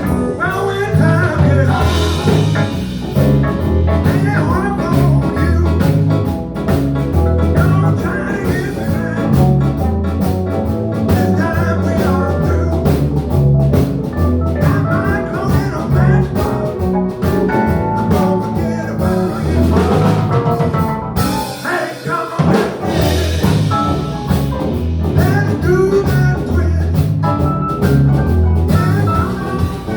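Live band playing blues: guitar over bass and drum kit with a steady beat. The bass drops out briefly about two-thirds of the way through.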